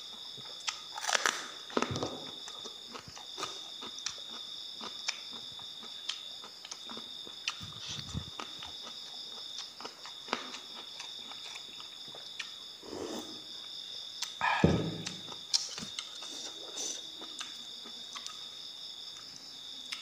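Close-up eating sounds: chewing and crunching into raw vegetables such as bitter gourd, with scattered mouth clicks and a few louder bites, the loudest about fifteen seconds in. Insects trill steadily in the background, with short regular pauses.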